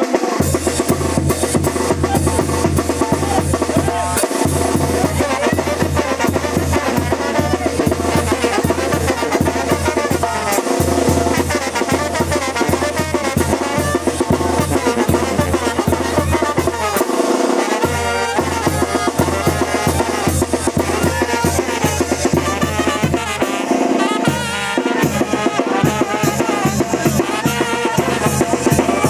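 Band music with drums, including bass drum and snare, keeping a steady beat under pitched instruments.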